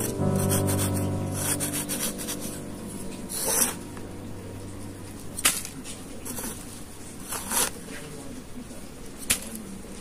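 A metal spoon scraping and digging into sand, in several short scrapes spaced a second or two apart.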